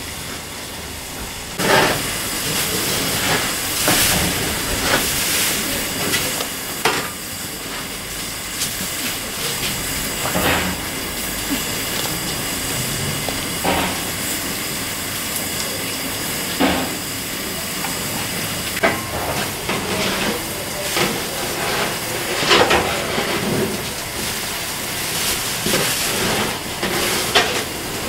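Steam locomotive simmering on shed with a steady hiss of steam, while it is being disposed of: irregular metallic knocks and clanks every second or few from the fire and ashpan being cleaned out underneath, coming more often near the end.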